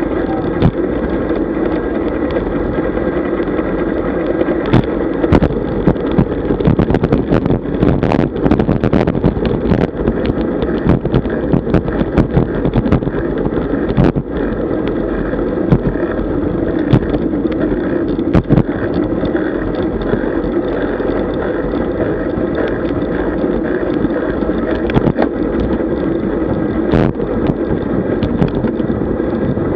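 Riding noise picked up by a camera mounted on a road bike: wind rushing over the microphone and a steady tyre-and-road rumble. Through the middle stretch there is a dense run of sharp clicks and knocks from the bike and mount jolting over rough tarmac.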